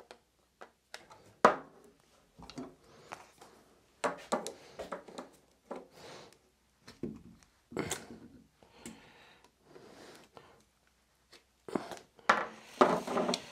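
Vise grips (locking pliers) clamped on a PVC pipe joint glued with 3D Gloop, twisted against it: scattered clicks, creaks and scrapes of the metal jaws on the plastic pipe, busier near the end. The joint holds and does not come apart.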